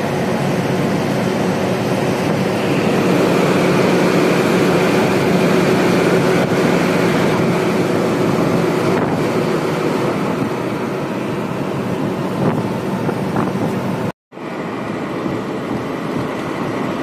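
Steady engine hum with road and wind noise, heard from inside the cab of a large vehicle moving at highway speed. The sound cuts out for a moment about three seconds before the end.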